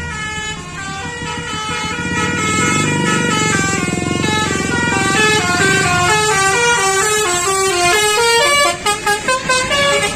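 Bus telolet musical air horn of the basuri type playing a multi-note tune in stepped held tones, finishing with a quick run of short toots near the end, over a low rumble.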